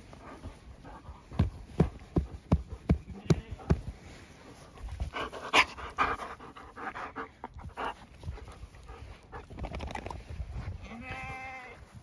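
A large dog panting and snuffling right at the microphone while being petted, with a quick run of about three breaths a second early on. Near the end comes one short, wavering, bleat-like animal call.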